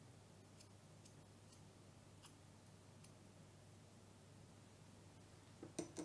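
Near silence with a few faint ticks, then two quick sharp knocks close together near the end, like a kitchen utensil knocking against a saucepan or worktop.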